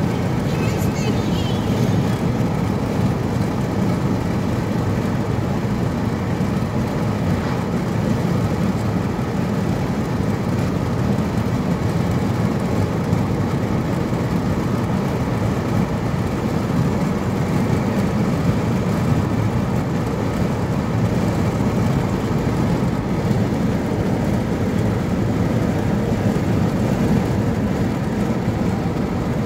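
Steady rumble of tyre and engine noise inside a moving car's cabin, even throughout.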